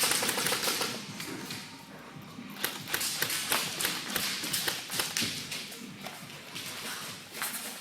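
An irregular run of light taps, clicks and knocks, with a few duller thuds, and no steady rhythm.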